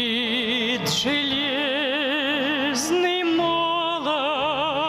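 A solo voice sings a slow Russian Christian hymn, holding long notes with a wide, even vibrato. It steps up in pitch about two thirds of the way through, over a steady instrumental accompaniment.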